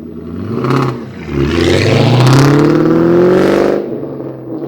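Supercharged 4.6-litre V8 of a 2004 SVT Cobra Mustang, through a Borla ATAK exhaust, revving up: the engine note climbs steadily in pitch for about two and a half seconds, then drops off near the end.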